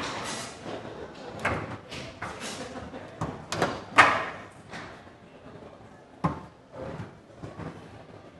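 Foosball table in play: rods sliding in and out of their bearings and the men knocking the ball about, a string of sharp clacks and sliding rushes, with the loudest strike about four seconds in.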